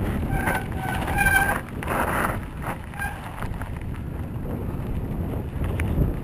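Wind buffeting the microphone of a mountain biker's action camera while riding, with a steady low rumble. A few short high-pitched squeals sound in the first second and a half, followed by a brief noisy burst.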